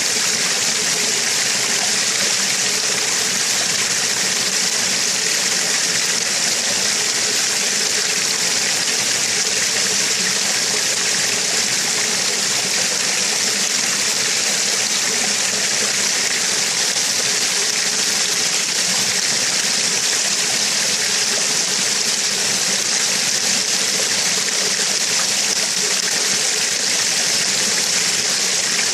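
Mountain valley stream rushing steadily: a loud, even wash of water.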